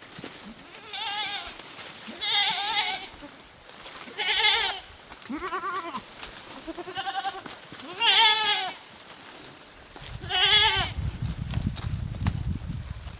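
Goats bleating over and over: about seven separate wavering bleats, some higher and some lower pitched. A low rumble sets in about ten seconds in.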